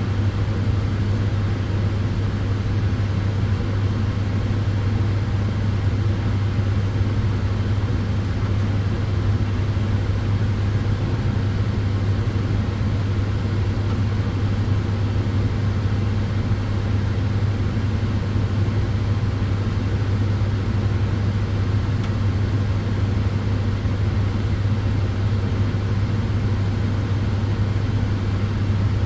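Tanning bed (sunbed) running: a steady, even rush of air from its cooling fans over a strong, constant low hum.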